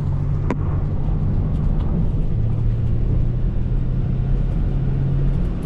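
A vehicle running with a steady low engine hum under a noisy rumble; the hum's pitch drops a little about two seconds in. A single sharp click comes about half a second in.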